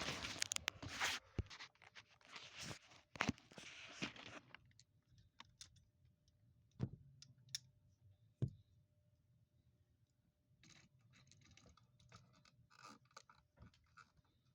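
Rustling and scraping handling noise with scattered clicks, then two sharp knocks about a second and a half apart, and faint rustling near the end.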